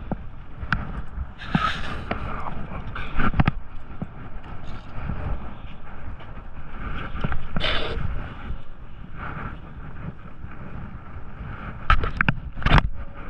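Wind buffeting the microphone in a steady low rumble, with scattered clicks, knocks and a few louder scraping bursts of gear being handled.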